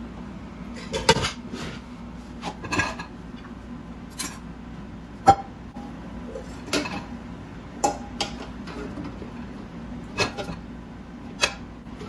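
Metal pots, a frying pan and lids clanking against each other and the wire dishwasher rack as they are shifted to make room: a series of separate knocks, the loudest about five seconds in.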